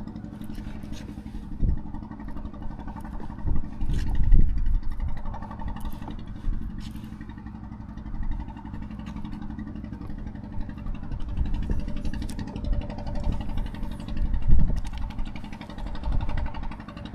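An engine running steadily, with a few louder low thumps.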